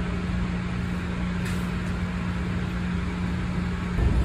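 Steady hum and rumble of a passenger train heard from inside the coach while riding, with a steady low tone throughout. About four seconds in the tone drops out and the low rumble grows louder.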